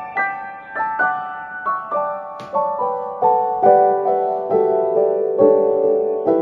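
Background piano music: a gentle melody of single notes struck about twice a second, stepping gradually lower in pitch.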